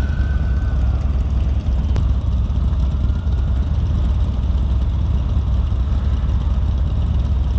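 Motorcycle engine running steadily, with a low, even sound throughout.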